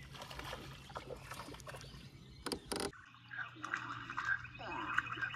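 Spinning reel being cranked as a hooked crappie is brought in, with scattered clicks, two sharp ones about two and a half seconds in. A steady low hum starts about three seconds in.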